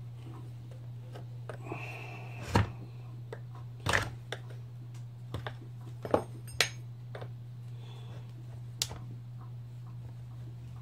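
A screwdriver clicking and knocking against a Stihl MS180C chainsaw's body as the slotted covers are worked at: several sharp separate knocks and clicks, the loudest about two and a half and four seconds in, over a steady low hum.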